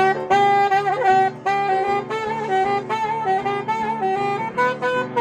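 Jazz saxophone playing a melody of held notes, over a steady rhythmic chord accompaniment.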